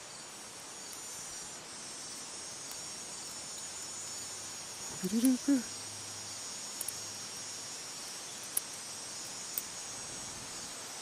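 Steady high-pitched insect buzzing. About halfway through comes a short vocal sound, then a few sharp clicks from harness buckles being fastened.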